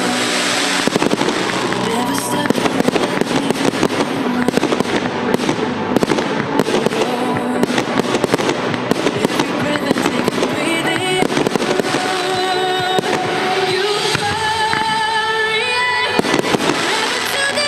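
Fireworks display going off: rapid, dense crackling and popping of bursting shells. Music plays underneath and comes more to the front in the second half.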